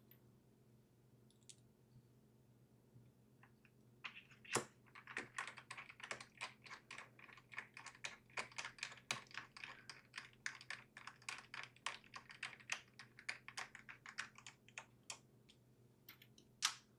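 Faint, quick light clicks, a few a second, from handling and fitting the bottom cover of a mini PC during reassembly. They start about four seconds in, with one sharper click at the start of the run, stop a couple of seconds before the end, and one more click comes near the end.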